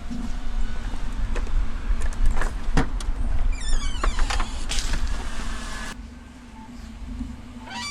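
A car's engine running with a low rumble, with scattered clicks and a short falling squeal near the middle. The rumble drops away about six seconds in.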